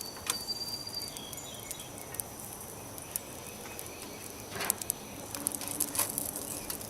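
Pre-cooked bacon frying in hot oil in a mess kit pan: an irregular scatter of sharp crackles and pops over a steady faint hiss, with a couple of stronger pops a little past halfway.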